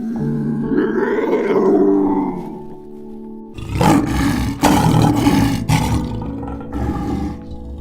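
A large animal's deep, rough calls: one long call at the start, then a run of about four short, loud ones about halfway in, over background music.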